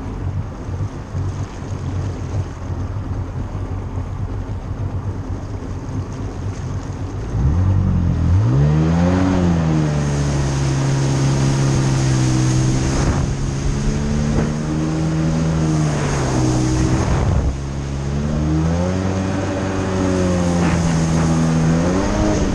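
2000 Sea-Doo GS personal watercraft's two-stroke engine running low at idle with water and wind noise, then throttled up about a third of the way in, its pitch rising and then holding steady. Its pitch drops briefly after the middle and climbs again near the end as the throttle is let off and reapplied.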